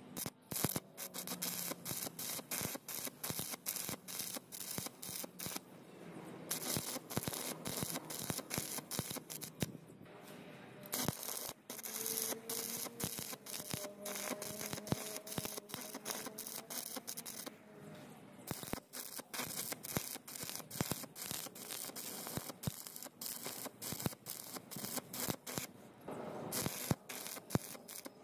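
Stick (shielded metal arc) welding: the electrode's arc crackling and spitting as a root weld is run into a joint of rusty square steel tubing. The crackle stops for a moment a few times.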